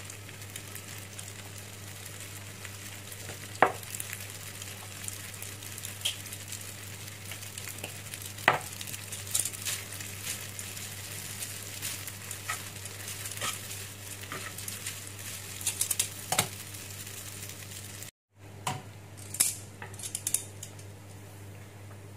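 Spaghetti sizzling in a small square frying pan on a gas hob, with metal tongs clicking and scraping against the pan as the noodles are tossed. The hiss runs steadily under sharp clicks every few seconds, and drops out for a moment near the end.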